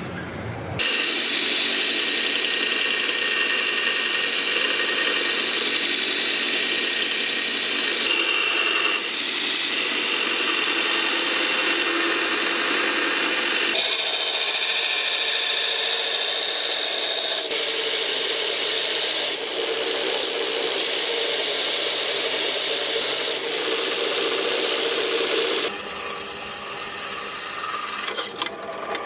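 Power tool grinding steel: a loud, steady abrasive hiss with a high squeal. Its tone changes abruptly several times.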